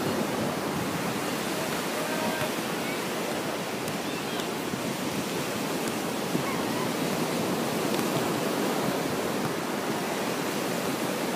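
Steady rushing of ocean surf breaking on a beach.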